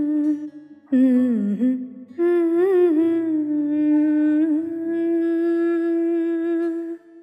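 Background song: a voice hums a slow, wordless melody in long held notes over soft low accompaniment, fading out near the end.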